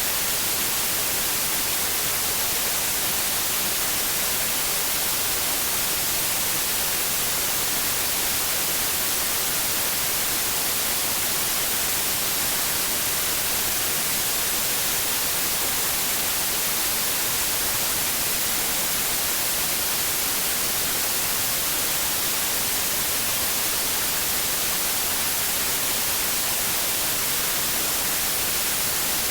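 Steady white noise: an even, unchanging hiss, brightest in the high end, played to soothe a baby to sleep.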